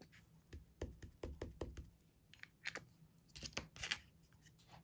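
Faint, scattered clicks and taps of a clear acrylic stamp block and stamp being handled on paper, about a dozen small knocks spread unevenly.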